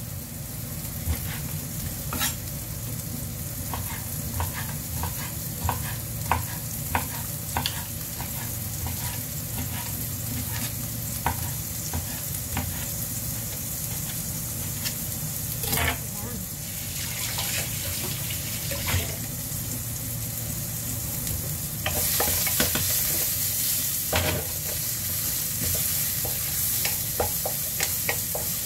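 Sliced onions sizzling in hot oil in a frying pan, a steady hiss scattered with sharp little pops and crackles. The sizzle gets louder about three-quarters of the way in, and near the end a wooden spatula stirs the onions.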